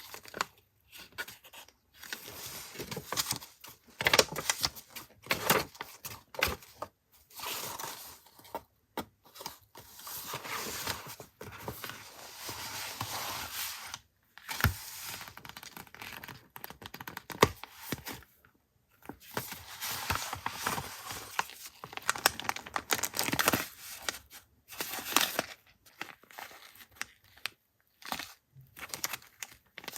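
Paper wrapping being handled and opened by hand: irregular bouts of tearing and crinkling, with short pauses between them.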